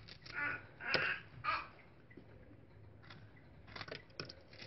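Knife cutting fresh strawberries: three short slicing sounds in the first second and a half, then a few light clicks of the blade near the end.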